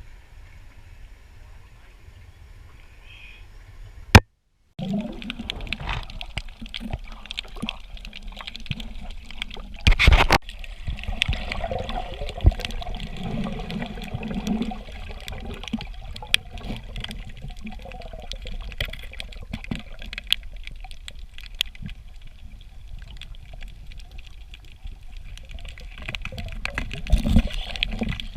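Water sloshing and gurgling, with scattered small clicks and knocks and a louder thud partway through. About four seconds in there is one sharp click and a brief cut-out, and the water sound is busier after it.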